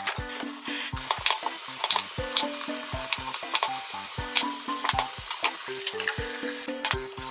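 Food sizzling as it fries in a lidded frying pan, the hiss brighter near the end when the lid is lifted. Background music with a simple stepping melody and a steady beat plays over it.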